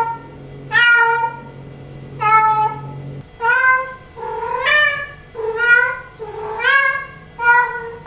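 A female cat in heat meowing over and over, a short call about once a second, some calls rising and falling in pitch: the calling a queen makes for a tom.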